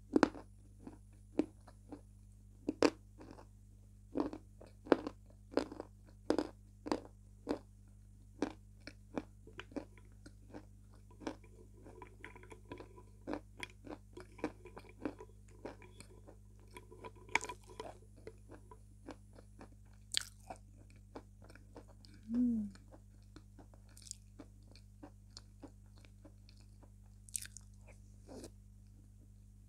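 Close-up crunching and chewing of wet chunks of Slavyansky edible chalk: sharp, irregular crunches, often more than one a second, as the pieces are bitten and ground between the teeth.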